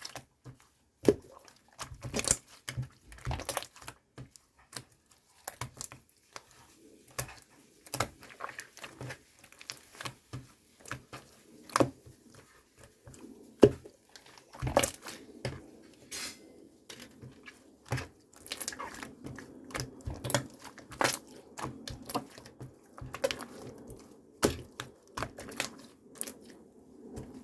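Irregular clicks and taps of small hard objects being handled, joined by a faint steady background noise from about seven seconds in.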